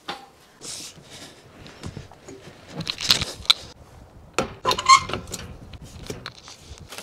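Black metal mesh-step ladder of a truck camper clanking and rattling as it is handled and set against the door sill, with a run of knocks and metallic rattles, the loudest about three and five seconds in.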